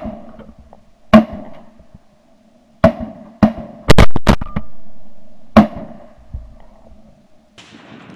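A string of shotgun shots, about eight in all: single shots about a second apart, then several in quick succession around four seconds in, each loud and sharp with a short echo.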